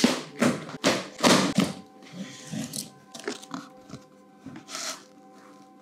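Long cardboard box being opened with a cutter: a handful of loud, quick scraping and tearing strokes across the packing tape in the first two seconds, then softer taps and rustles as the flaps are lifted. Faint background music runs underneath.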